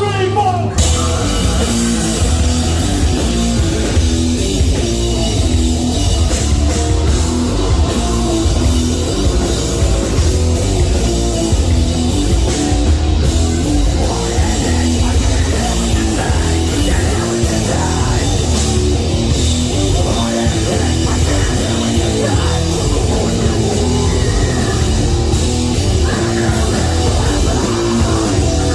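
A heavy metal band playing live at high volume, with distorted guitars, bass and drums in a steady, chugging rhythm.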